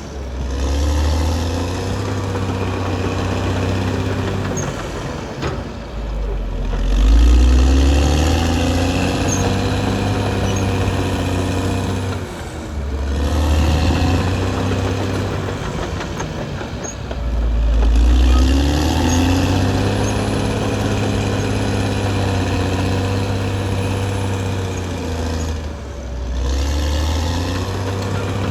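Caterpillar D6R XL bulldozer's diesel engine running, its revs rising and falling in repeated surges roughly every six seconds.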